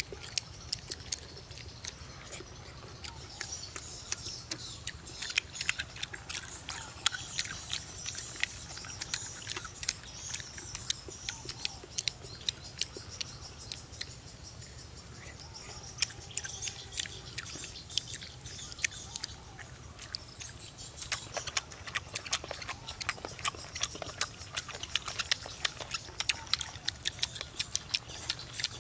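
Boiled pig lung being torn apart by hand and chewed: a dense run of small, irregular wet clicks and smacks.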